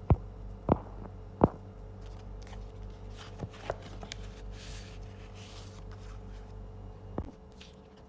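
Photocard packaging being handled: three sharp clicks or taps in the first second and a half, then a rustle of plastic or paper with a few lighter ticks, and one more click near the end, over a steady electrical hum.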